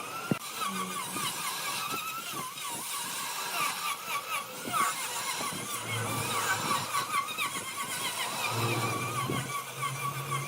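Large wood lathe running, with a wavering high-pitched squeal over a steady low hum and a sharp click right at the start.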